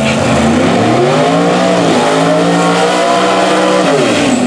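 Drag race car engine revving at high pitch, rising and falling, with a sharp drop and climb in pitch about four seconds in.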